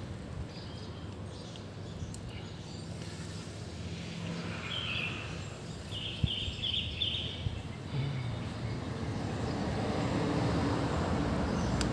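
Outdoor background noise: a low rumble, like distant traffic, that grows louder toward the end, with two short runs of high chirping near the middle.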